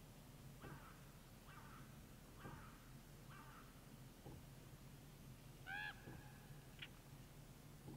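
Faint calls of a crow-family bird, about one a second, then a louder call near six seconds in and a short one just before seven, over a low steady hum.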